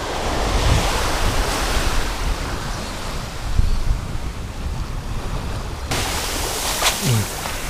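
Ocean surf washing onto a sandy beach, with wind rumbling on the microphone. About six seconds in the wash turns hissier as a wave runs up over the sand around the feet.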